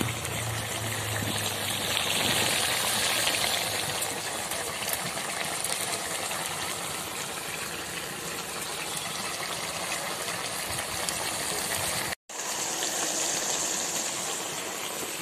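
Vegetable curry boiling hard in a wide kadai over a wood fire: a steady bubbling hiss as its water cooks down. It cuts out briefly about twelve seconds in.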